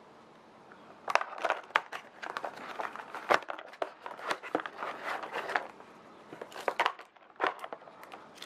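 Plastic packaging bag crinkling and crackling as a headset cable wrapped in it is handled and pulled from the box. The crackles come thick and irregular from about a second in, with a short lull near the end.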